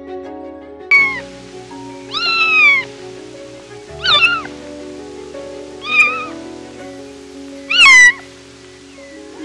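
Kittens meowing five times, about every two seconds: high-pitched calls that fall in pitch, the second and the last drawn out longer, over soft background music.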